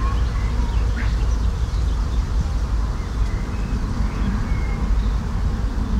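Outdoor ambience on a homemade microphone: scattered short bird calls over a steady low rumble.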